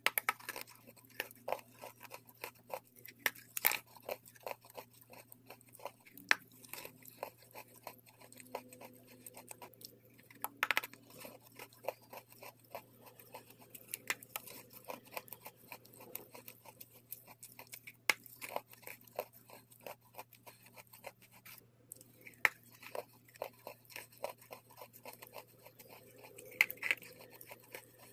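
Close-up biting and chewing of green wet chalk paste: a dense, irregular run of crisp crunches and wet clicks, with a few louder bites standing out.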